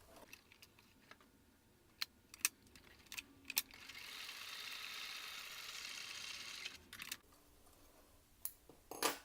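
Domestic sewing machine running a short test seam for about three seconds, a steady mechanical run, with its bobbin loaded backwards so it spins counterclockwise. Before and after it come a handful of sharp clicks and knocks of the machine being handled.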